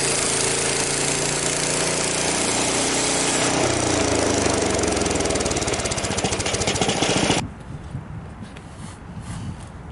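Frontier OS23 bandsaw mill's gasoline engine running steadily. About three and a half seconds in its pitch drops and it runs on with a fast, even pulsing. The sound cuts off suddenly a little after seven seconds, leaving a faint low rumble and a few light knocks.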